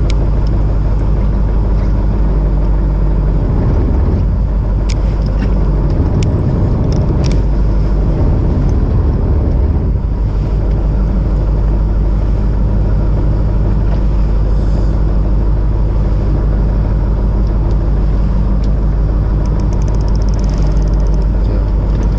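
Fishing boat's engine running steadily, a low even hum over a rush of wind and water, with a few light clicks about five to seven seconds in.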